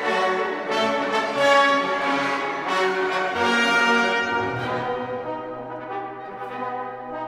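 Orchestral music with brass and French horns playing a slow melody, the notes settling into a long held low chord over the second half.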